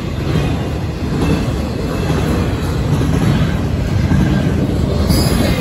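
FEC intermodal freight train cars carrying trailers rolling past close by, with a steady, loud rumble of wheels on the rails.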